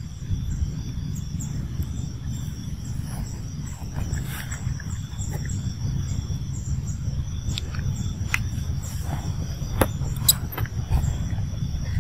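Outdoor ambience: a steady low rumble of wind on the microphone under a faint, steady insect drone, with a few sharp clicks in the second half.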